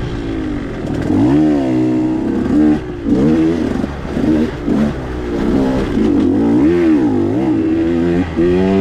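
2021 KTM 125 XC's two-stroke single-cylinder engine under way on a dirt bike, revving up and down with the throttle, its pitch rising and falling again and again.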